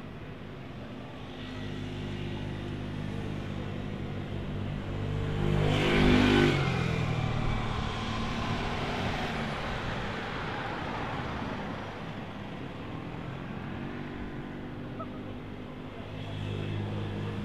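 Street traffic: an engine hum builds, and a vehicle passes close about six seconds in, loudest as it goes by and falling in pitch as it moves away. Another engine hum swells near the end.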